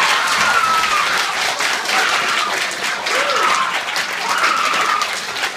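Theatre audience applauding loudly through a curtain call, with several drawn-out cheers from the crowd over the clapping.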